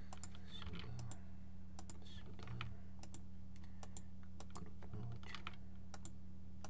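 Irregular clicks of a computer keyboard and mouse in use, over a steady low electrical hum.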